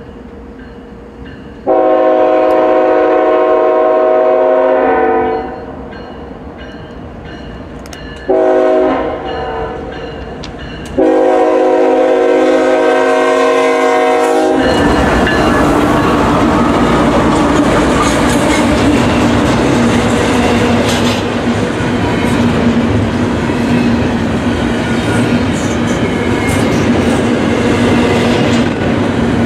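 Diesel freight locomotive's air horn sounding three blasts, a short one between two long ones, as a grade-crossing warning. From about halfway in, the train runs close past without its horn: the locomotives go by, then the double-stack container cars roll past with a steady clickety-clack of wheels on the rails.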